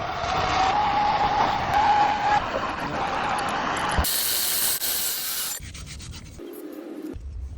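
Rubbing and scraping of hand tool work on plumbing pipe and fittings, broken into several short clips that change abruptly; the last few seconds are quieter.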